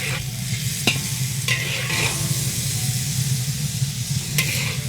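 Food sizzling as it is stir-fried in a wok, with a spatula striking and scraping the pan a few times and a steady low hum underneath.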